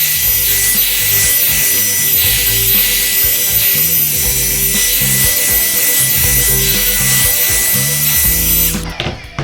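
Revlon One-Step hair dryer brush running on its high setting: a steady rush of air with a high motor whine, switched off abruptly near the end.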